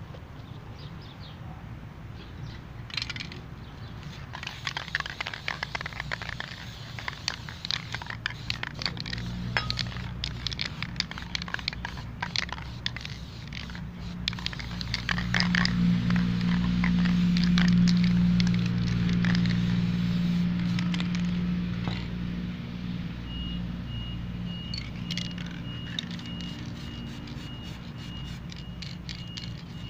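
Aerosol spray-paint cans spraying in short hissing bursts, with clicks and scrapes of cans and paper being handled. In the middle a low humming rumble swells and fades and is the loudest sound.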